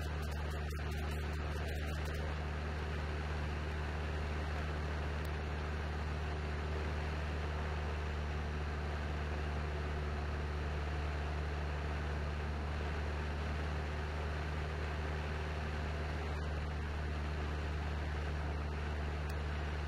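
Cessna 172N's four-cylinder Lycoming engine and propeller running steadily in cruise, heard inside the cabin as a constant low drone over a hiss of airflow.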